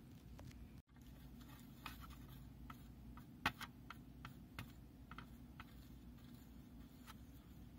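Wooden toothpick stirring and scraping in a small plastic well of simulated blood, a scatter of faint ticks and scratches, the loudest about three and a half seconds in.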